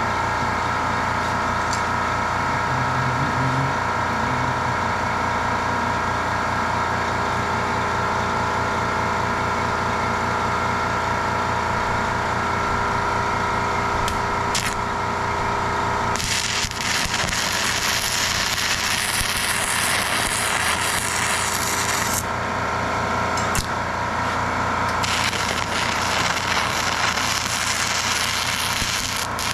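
Angle grinder running with a steady whine. From about halfway its disc is worked against steel, adding a harsh hiss that breaks off for a few seconds and then resumes.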